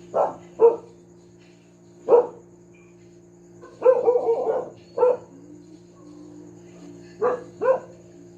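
Pet dog barking in short, loud barks: a pair, a single, a quick run of barks about four seconds in, another single, then a pair near the end. A steady low hum runs underneath.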